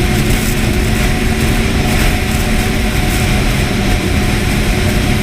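Snowmobile engine running at a steady speed, a constant drone over a heavy low rumble.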